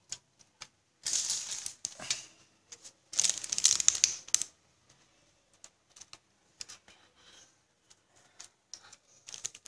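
Handling noise while a capacitor is soldered onto a PC power supply circuit board. Scattered clicks and light rattles, with two longer rustling bursts about a second in and about three seconds in.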